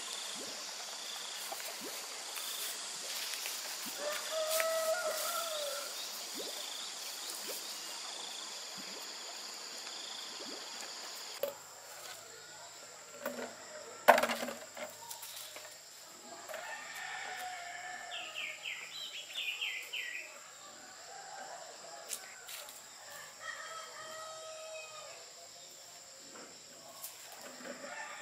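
Roosters crowing a few times, each crow a rising-then-falling call of a second or two, over a steady high insect whine and brief chirps of small birds. A single sharp knock about halfway through.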